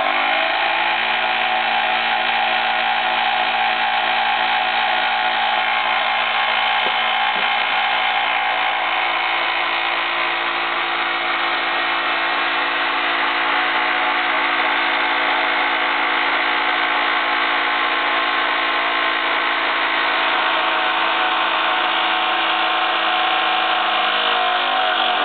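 Jensen 75 toy live-steam engine running flat out, a steady high whirr over the hiss of exhaust steam jetting from its narrow exhaust pipe. Its pitch climbs in the first second as it comes up to speed, then holds at about 3,450 rpm.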